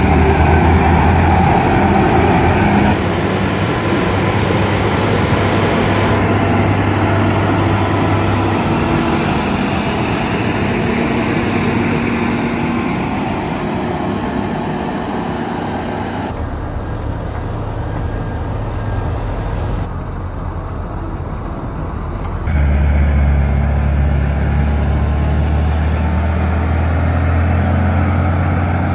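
Heavy diesel engine running steadily with a deep drone. Its level and tone shift abruptly several times, and it is loudest in the last few seconds.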